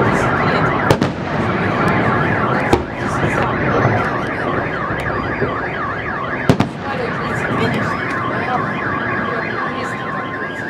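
Several car alarms wailing together, their tones sweeping quickly up and down over and over, amid a fireworks salute. Three sharp firework bangs break through, the loudest about six and a half seconds in.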